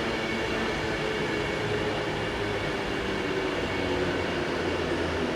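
A train running through the station: a steady rumble carrying several held tones.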